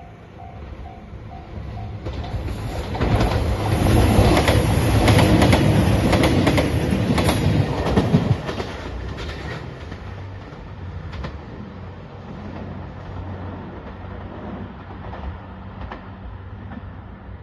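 Level-crossing warning bell ringing at about four strokes a second and stopping about two seconds in, then a train passing at speed with its wheels clacking over the rail joints, loudest for about five seconds before dying away to a low rumble.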